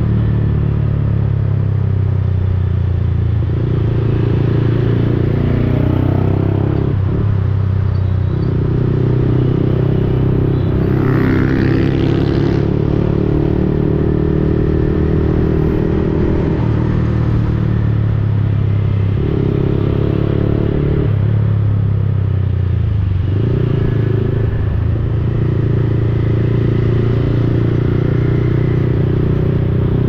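Yamaha XSR155's single-cylinder engine running through a replica Akrapovic aftermarket exhaust while riding in traffic. The engine note steps up and down several times as the throttle and gears change, with wind noise on the camera microphone.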